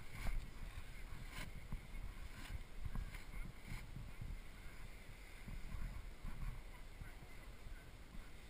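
Wind buffeting the camera microphone: an uneven low rumble, with a few faint clicks in the first four seconds.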